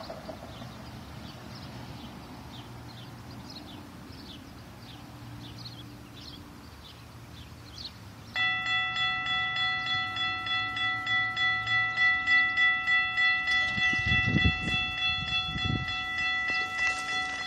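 Electronic railroad grade-crossing warning bell starting suddenly about eight seconds in and then ringing steadily at about two dings a second, the crossing signals activating for an approaching train. Before it there is only faint background traffic, and a few low rumbles come in near the end.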